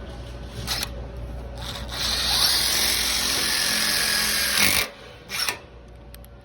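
Ridgid impact drill driving a self-tapping screw in one steady run of about three seconds, with short bursts of the tool just before and after.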